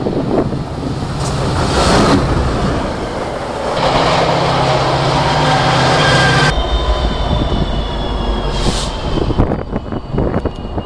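Diesel-electric locomotives passing close by at trackside, in short clips cut together. First comes rail and wind noise, then a steady engine drone that cuts off suddenly, then a lower rumble of wheels on rail with a faint, thin, high wheel squeal.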